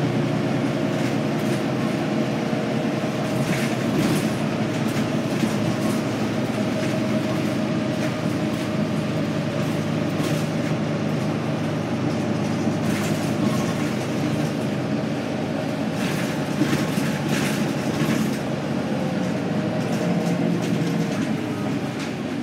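Wright Gemini double-decker bus running, heard from inside on the upper deck: a steady engine and road drone with occasional rattles from the bus's fittings, the engine note shifting in pitch near the end.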